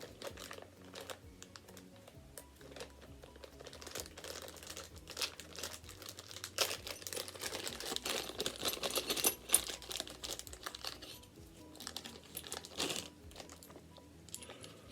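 A small plastic parts bag being crinkled and opened by hand, in irregular bursts of crackling that are busiest in the middle of the stretch. Faint music runs underneath.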